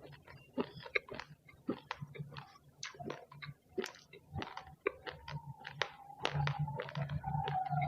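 Raw rice grains being chewed up close: a rapid, irregular run of sharp crunches, several a second. A low steady hum grows louder about six seconds in.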